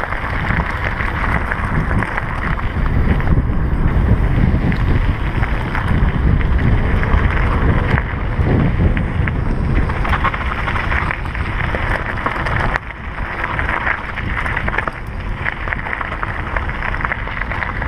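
Wind buffeting the microphone while a mountain bike descends a gravel road at speed, with the tyres crunching and crackling over loose gravel throughout.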